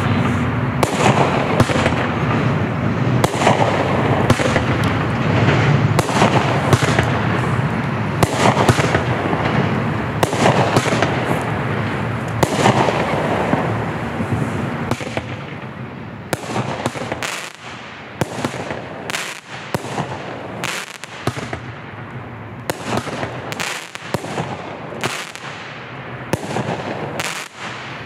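Consumer firework cakes firing, the three 6-shot tubes of a Black Cat Picnic Pack: a dense run of launches and bursts over the first half, then thinning to separate, quieter reports one or two a second.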